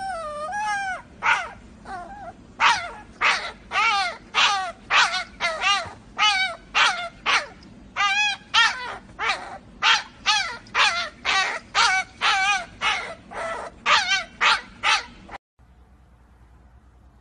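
Puppy yipping over and over, short high wavering yips about two a second after a longer drawn-out opening call; the yipping stops suddenly near the end.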